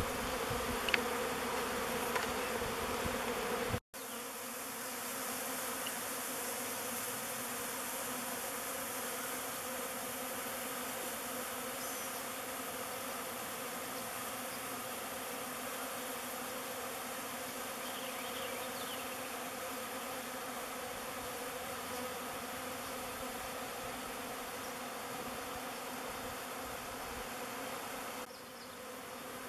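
A swarm of honeybees buzzing in a steady, dense hum. The hum drops out for a moment about four seconds in, then carries on unchanged.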